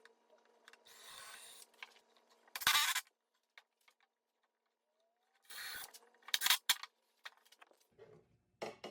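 A tool working on wood in a few short scraping strokes, the loudest about two and a half and six and a half seconds in, with scattered clicks and knocks between them.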